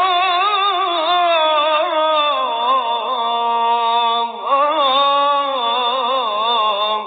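Background music: a single voice singing a slow melody with a wavering pitch, dipping briefly about four seconds in.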